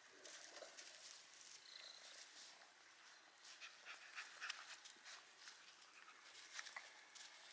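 Near silence: faint rustling and light ticks as a cat and a puppy move about on grass.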